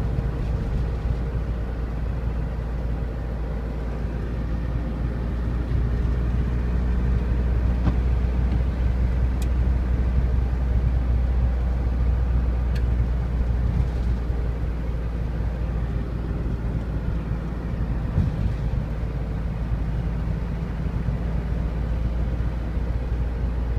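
Steady engine drone and road noise inside a moving van's cabin, with a deep rumble underneath. It grows a little louder about five seconds in.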